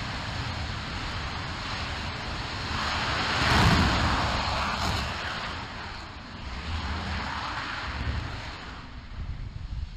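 RS-25 liquid-hydrogen/liquid-oxygen rocket engine firing on its test stand: a steady rushing noise with a deep rumble under it, loudest about three and a half seconds in, then tailing off near the end as the firing winds down.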